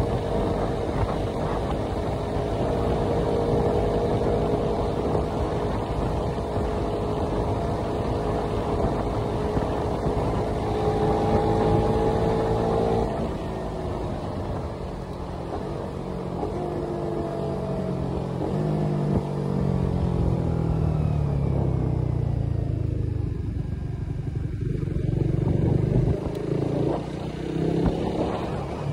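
Suzuki Raider R150's single-cylinder engine running at a steady road speed, with wind rushing over the microphone. About halfway through the engine note drops as the bike slows and falls in pitch over the next few seconds, then rises again near the end as it picks up speed.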